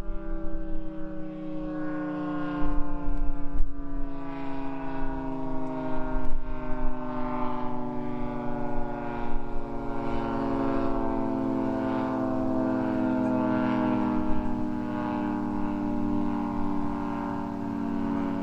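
Federal Signal 2T22 dual-tone rotating siren sounding a sustained two-note chord, its pitch slowly sinking throughout. Wind buffets the microphone in gusts during the first several seconds.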